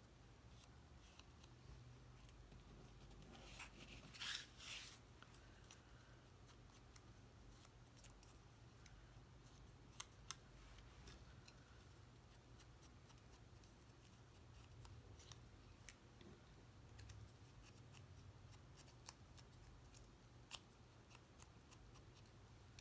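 Faint rubbing of ink being applied along the edges of cardstock pieces, with a brief louder scratchy rub about four seconds in and a few small clicks. A low steady hum runs underneath.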